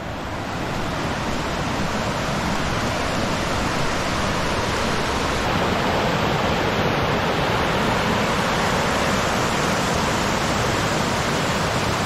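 Mountain stream rushing over rock slides and rapids, loud and steady, its flow swollen by rain two days before.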